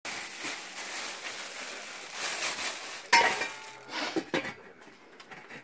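Stainless steel pot being handled with grain rattling inside, then its lid set down on it with a sharp metallic clack about three seconds in, followed by softer clinks.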